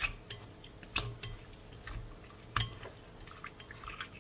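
Wooden chopsticks stirring seasoned fish pieces in a glass bowl, clicking and knocking against the glass at irregular intervals. The loudest knock comes about two and a half seconds in.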